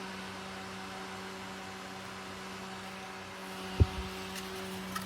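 Mini USB clip fan running steadily with a hum and airy hiss. Near the end there is one short, loud low thump, followed by a faint click.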